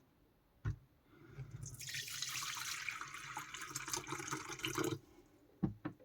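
Water running from a tap, starting about a second in and stopping about five seconds in, with a click just before it starts and a few light knocks near the end.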